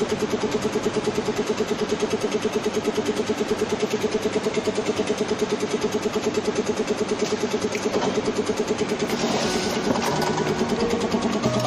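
Automatic carton sealer running: a steady machine drone with a rapid, even pulsing beat. A hiss joins in about nine seconds in.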